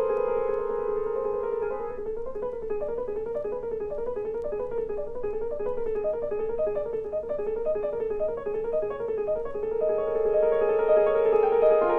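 Solo piano playing a contemporary classical piece. Held notes give way to a quick, repeating figure of alternating notes that weaves up and down, which settles back into sustained notes near the end.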